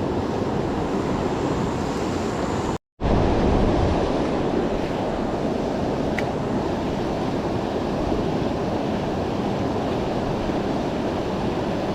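Steady rushing of river water, an even noise with no distinct events, which cuts out completely for a moment about three seconds in.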